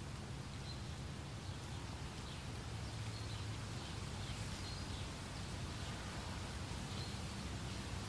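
Meadow ambience: a steady wind hiss through grass with a low rumble, and faint short bird chirps a few times.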